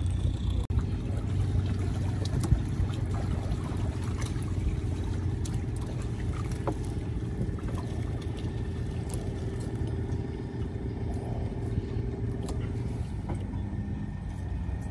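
Boat engine running steadily at sea. About thirteen seconds in, its note shifts lower.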